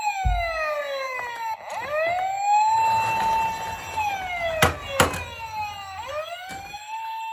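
A toy ambulance's electronic siren wailing, rising to a held high note, falling and rising again. Two sharp clacks come just after the middle as the plastic toy rolls along.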